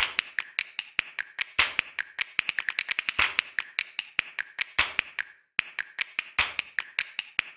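Typing sound effect: rapid, irregular keystroke clicks, several a second, with a short pause about five and a half seconds in.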